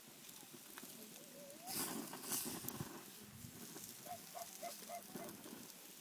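Faint crackling and hiss of a wood cooking fire, with a short animal call of about five quick repeated notes about four seconds in.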